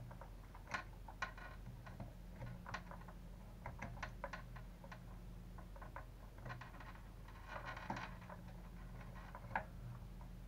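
Irregular light clicks, taps and brief scraping of a hex driver and small parts being fitted on a Traxxas Revo 3.3 nitro RC truck chassis, with one sharper click near the end, over a low steady electrical hum.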